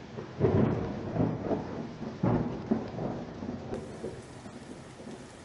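Thunder with rain: several loud claps rolling into rumbles over the first three seconds, dying away into a steady hiss of rain.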